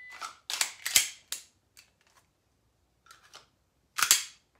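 A brief high beep, then a quick run of sharp metallic clicks and clacks from a handgun being drawn and worked, with a loud double clack about four seconds in as both hands work the pistol.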